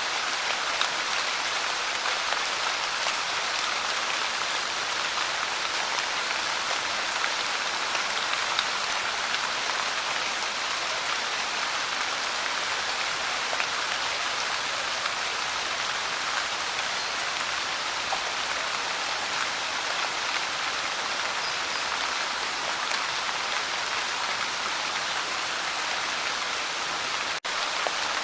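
Light rain falling steadily: a dense, even patter of fine drops, with a momentary drop-out near the end.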